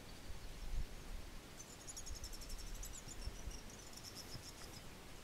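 Faint outdoor ambience with a low rumble. About a second and a half in, a high, fast pulsing trill of chirps starts, from a small animal, and it stops shortly before the end.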